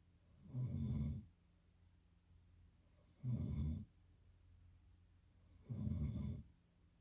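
Snoring: three short, low snores in a steady rhythm about two and a half seconds apart, with quiet breathing pauses between them.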